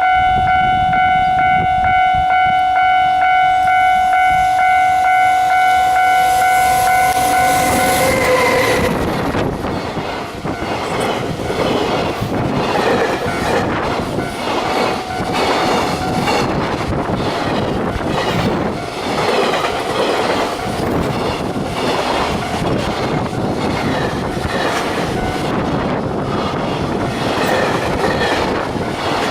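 JR Freight EF210 electric locomotive sounding a long steady horn blast that drops in pitch as it passes at about eight seconds, followed by the freight train rolling by with rhythmic clacking of wheels over the rail joints.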